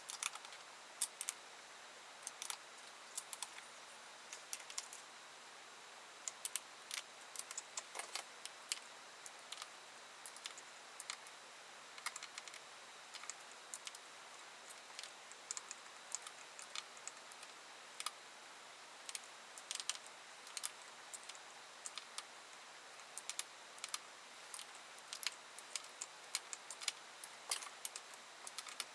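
Irregular small clicks, taps and light metallic rattles of hand tools and small parts handled while fitting a part back onto a vintage chainsaw, some loud, most faint.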